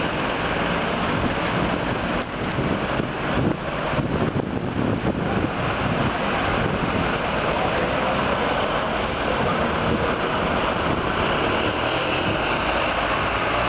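Steady street traffic noise mixed with wind blowing on the microphone.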